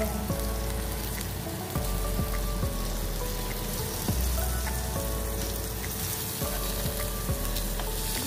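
Beef steaks frying in coconut oil and melting butter in a nonstick pan, a steady sizzle, with background music underneath.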